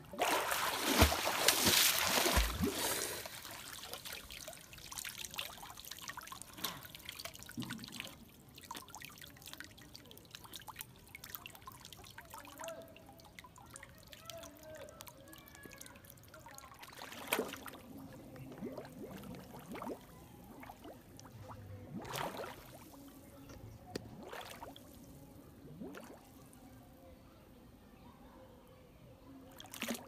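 Water splashing as a toy bus is pulled up out of the water, loudest in the first three seconds. After that comes lighter trickling and dripping with a few short splashes.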